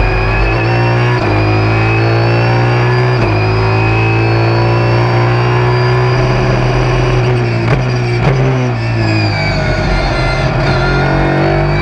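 Nissan Supercar's 5.0-litre V8 engine running hard at racing speed, heard from the cockpit; its pitch holds and drifts through a long stretch, then rises near the end as it accelerates.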